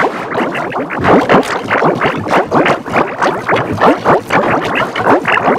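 Heavily processed cartoon soundtrack in the 'G-Major' edit style: several pitch-shifted copies of the same audio laid over one another, forming a continuous jumble of quick rising and falling tones.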